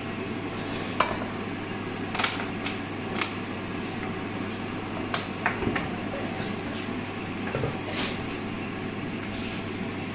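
Kitchen handling noises: scattered light clicks and knocks of utensils against a cooking pot over a steady low hiss.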